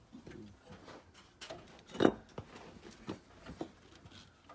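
Scattered metal clinks and knocks from an engine and gearbox being worked into a car's engine bay, with one sharp clank about two seconds in.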